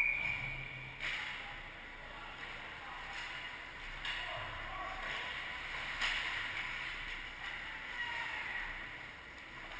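Ice hockey rink sound during play: skate blades scraping the ice and a few sharp knocks of sticks and puck, with faint distant shouts, opening with a brief high-pitched tone.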